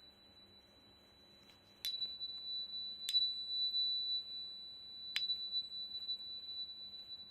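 Crystal tuner: a small 4096 Hz tuning fork tapped against a quartz crystal, ringing with a high, pure, steady tone. It is struck three times, about two, three and five seconds in; each strike is a sharp tap that renews the ring.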